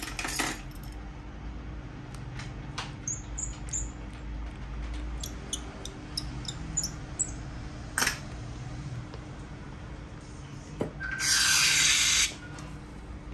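Small clicks, taps and light ticks of hand tools and parts being handled during an iPhone repair, with a loud hiss of just over a second near the end.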